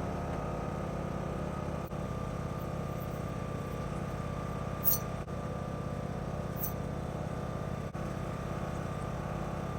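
Riding lawnmower engine running steadily, with a steady high whine over it. Two short metallic clinks come about five and six and a half seconds in.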